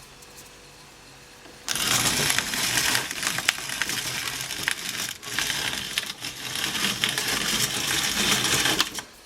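Family Grain Mill manual grinder being hand-cranked, grinding: a dense rasping grind full of small clicks that starts about two seconds in, dips briefly twice, and stops just before the end.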